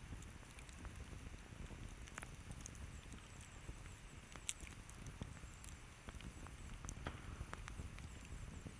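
Campfire crackling: scattered sharp pops and snaps of burning wood over a low steady rumble, with the loudest pop about halfway through.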